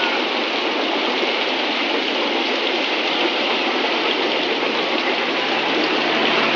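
Heavy rain falling steadily, with the coaches of a passing passenger train rolling by under it.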